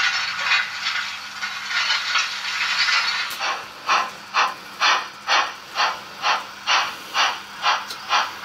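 Märklin model steam locomotive of the Belgian series 1.030 running past with its steam chuff sound; from about three seconds in the chuffs come evenly, a little over two a second, over a faint steady hum.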